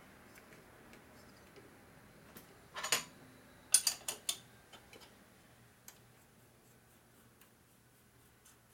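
A short scrape and a quick cluster of sharp metallic clicks, about three to four seconds in, as an engine cylinder is worked down over its piston and studs, then a few faint ticks.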